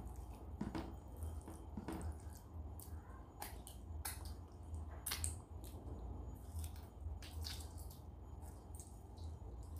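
Wet eating sounds: fingers squelching through rice and dal on a steel plate, and smacking, open-mouthed chewing, heard as an irregular string of short wet clicks over a low steady hum.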